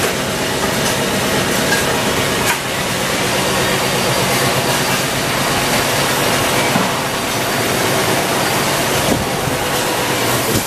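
Steady, loud hiss and hum of candy-making machinery running, with a short dip about two and a half seconds in.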